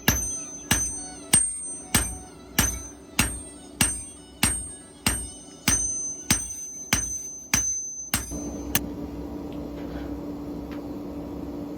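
A blacksmith's hammer striking an anvil in an even rhythm, about three blows every two seconds, each ringing high and bright. The hammering stops about nine seconds in, leaving a steady low hum.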